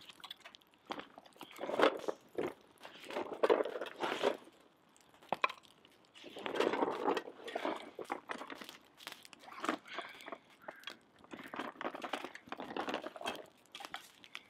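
Bursts of rustling and crunching as camp cooking gear is handled and set down, over a wood fire crackling with scattered sharp pops.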